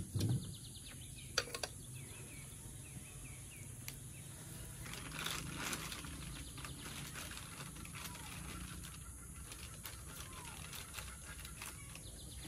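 Rural outdoor ambience: a steady high insect drone with a few bird chirps. A dull knock at the very start, and a plastic bag of dried tea leaves crinkling about five seconds in.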